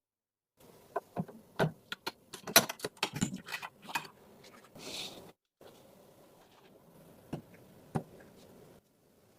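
Computer parts being handled and fitted: a quick run of small clicks and taps, a short rustle about five seconds in, then two single clicks near the end.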